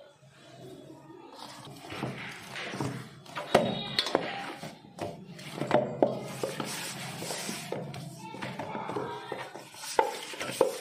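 Kitchen utensils and dishes being handled: scattered sharp knocks and clinks over a scraping, rustling background, loudest about three and a half seconds in.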